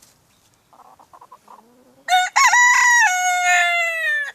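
A rooster crows once, a loud call of about two seconds starting halfway in: a quick rise in pitch, then a long held note that slowly sinks before cutting off. Soft hen clucking comes before it.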